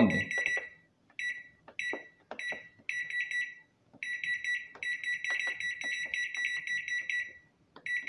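Electric oven control board beeping each time a key on its rebuilt push-button keypad is pressed: short high beeps, some single and some in quick runs, with faint clicks from the buttons. Each beep confirms that the key press registers, so the repaired keypad is working.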